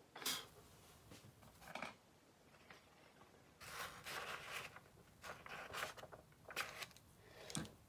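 A series of short, dry scrapes and rustles, quiet, with a longer one of about a second near the middle.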